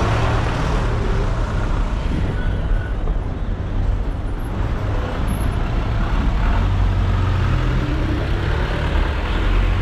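Busy street traffic: a steady low rumble of vehicle engines.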